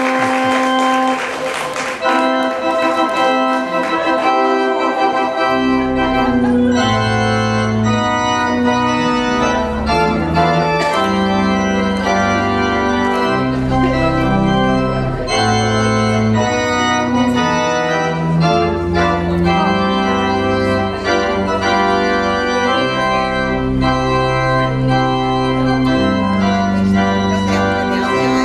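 Organ playing a wedding recessional in sustained chords, with applause dying away in the first two seconds. Deep bass notes join about five seconds in.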